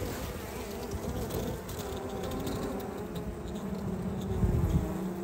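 Honeybees buzzing over an open hive's brood frames: a steady hum of many bees, with a brief low rumble about four and a half seconds in.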